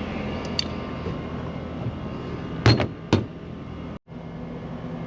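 Steady hum of a running machine, with two short knocks or clicks about halfway through.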